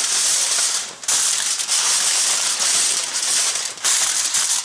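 Aluminium foil crinkling and crackling loudly as it is crumpled and pressed by hand into a loose tent, with brief pauses about a second in and near the end.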